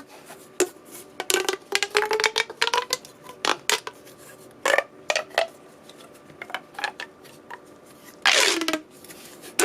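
Small hard plastic fidget toys being handled, giving a quick irregular series of light clicks and clatters, with one short rustle near the end.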